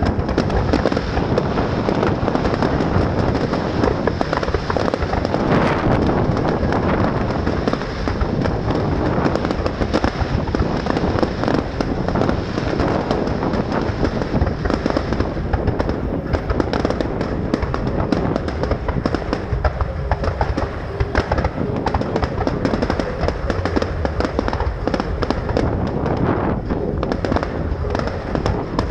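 Fireworks display: a dense, continuous barrage of bangs and crackling that keeps up without a break.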